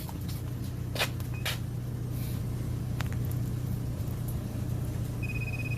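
Handheld TPMS scan tool giving a short, steady electronic beep near the end as it reads a tire pressure sensor, over a steady low hum and a few light clicks.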